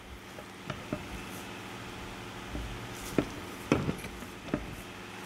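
Scattered light clicks and knocks of metal parts being handled as an outboard lower unit's driveshaft is turned and a housing is worked down onto the gearcase, over a steady hum.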